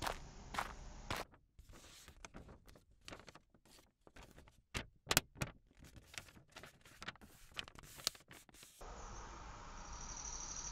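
Footsteps on pavement in the first second, then crisp crackles and clicks of a paper letter being handled, the loudest about five seconds in. From about nine seconds a steady outdoor ambience with an even high-pitched hum sets in.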